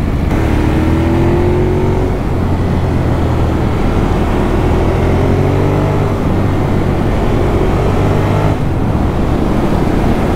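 Ducati Monster's V-twin engine pulling hard under acceleration, its note rising in several steps with short breaks between them, as with upshifts. Heavy wind rush covers it on the helmet camera microphone.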